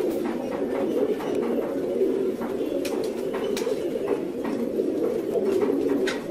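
Many caged fancy pigeons cooing together in a dense, overlapping chorus of low calls, with a few short clicks scattered through it.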